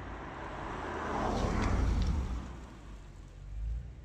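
Audi RS6 Avant with a twin-turbo V8 driving past: engine rumble and tyre noise build to a peak about one to two seconds in, then fade as it drives away.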